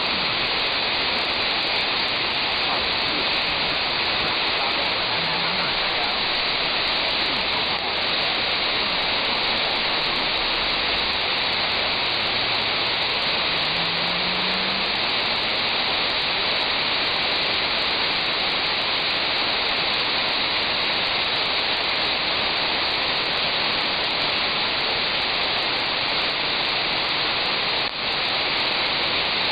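Demodulated upper-sideband hiss from an RTL-SDR receiver (NooElec NESDR) tuned near 145.96 MHz on the 2 m band: steady static cut off sharply above the receiver's filter. A faint low tone glides slowly upward about halfway through, a weak carrier drifting through the passband.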